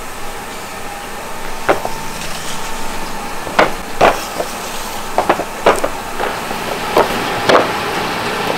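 Wooden ware boards loaded with unfired clay pot lids knocking against a metal-topped worktable as they are set down and shifted: about eight sharp wooden clacks, several in quick succession in the middle, over a steady factory background hum.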